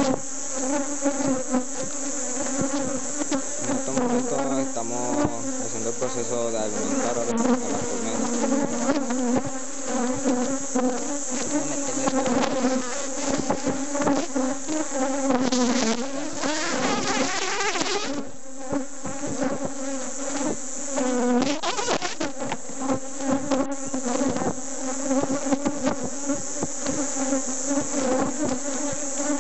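Honeybees buzzing in a dense, steady hum around an open hive, the pitch wavering in places.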